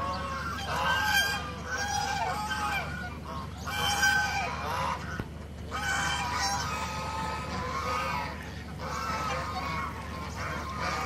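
A flock of domestic geese honking, many calls overlapping in a near-constant clamour, with the loudest calls coming in bunches about a second in and again about four seconds in.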